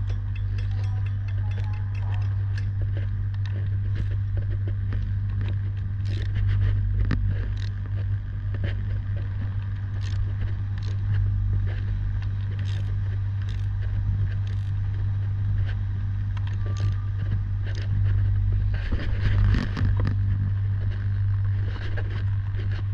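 Steady low electrical hum of energised high-voltage substation equipment, with scattered clicks and light scrapes of tools on metal.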